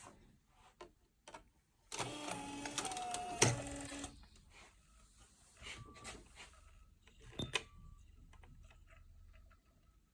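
A small motorised mechanism whirs for about two seconds, with scattered clicks and knocks before and after it.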